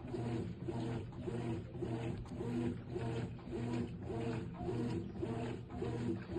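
Brastemp BWK14AB top-loading washing machine agitating, its mechanism freshly overhauled: the agitator motor and transmission swing back and forth in an even rhythm of about two and a half strokes a second.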